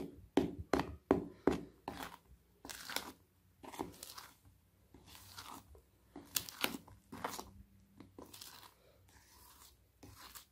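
Metal spoon stirring and scraping through thick chocolate cake batter in a plastic bowl as flour is mixed in: a run of quick, irregular scraping strokes, closer together at first and more spaced out later.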